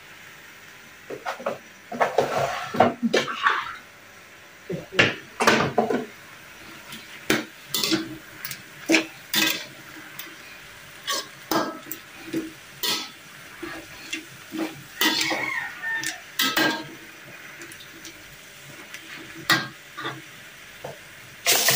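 Metal spatula scraping and knocking against a wok while stir-frying greens, in irregular strokes with short pauses.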